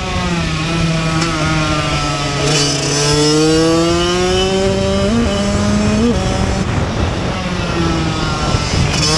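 Kawasaki KX85's two-stroke single-cylinder engine under racing load, heard from on the bike: its pitch climbs through each gear and drops at the upshifts near the start and about two and a half seconds in. Two short throttle blips come around five and six seconds in, then the engine runs softer off the throttle for a few seconds before picking up again at the end.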